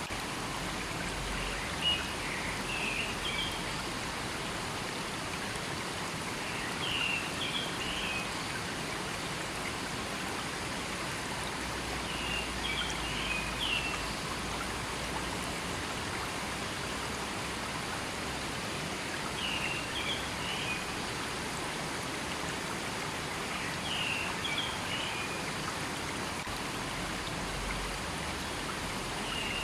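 River water flowing steadily with an even rushing sound. A bird's short, high call phrase recurs about every five seconds over it.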